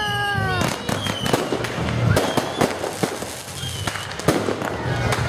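Aerial fireworks going off: rapid bangs and crackles, with several short whistles that fall in pitch.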